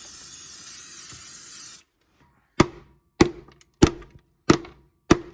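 Aerosol freeze spray hissing steadily, cutting off just under two seconds in, then five sharp hammer blows about 0.6 s apart. The spray chills the tar-like sound deadening on the car's floor pan so that it turns brittle and can be knocked loose.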